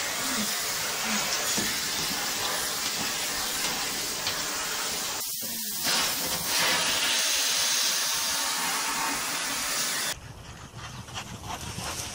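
Vacuum cleaner running steadily as its floor brush is drawn over a lying dog's coat. The sound cuts off about ten seconds in, leaving a much quieter background.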